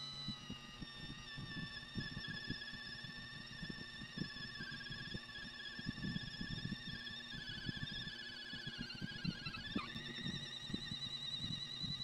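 Homemade 24-volt gearbox-motor mini drill press whining steadily as its twist bit cuts into an aluminium plate, with a low crackling rattle of the cut underneath. The whine sags and wavers in pitch under load, dips lower near the end, then picks back up again about ten seconds in.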